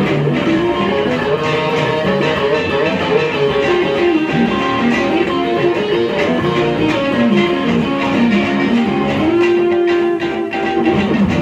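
Two electric guitars playing together through amplifiers, with no singing. A picked melodic line moves over the other guitar's part and settles on one long held note about nine seconds in.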